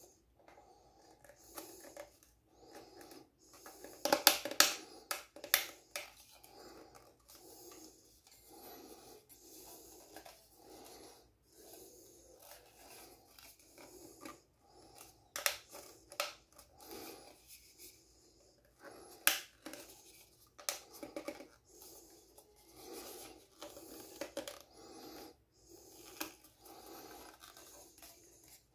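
Hands handling scale-model airplane parts and plastic packaging: scattered clicks, scrapes and rustles, with a cluster of louder clicks a few seconds in.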